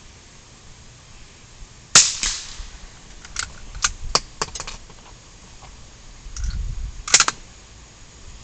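Two rifle shots, about five seconds apart, each a sharp crack with a short echo tail. A run of lighter clicks sits between them.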